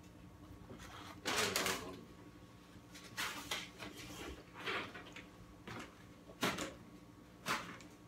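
Short rustles and knocks of fast-food wrappers and packaging being handled and people moving at a table, about seven in all, the loudest about a second in.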